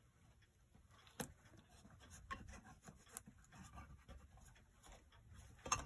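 Faint rubbing and scattered light clicks and taps as fingers press and smooth Gorilla Tape onto a clock movement's housing, with a sharper knock near the end.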